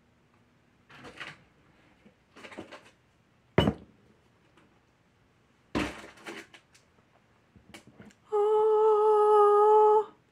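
Handling noises as containers are picked up and put down: rustling, a sharp click about three and a half seconds in and a clatter about six seconds in. Near the end a woman hums one steady note for about two seconds, the loudest sound.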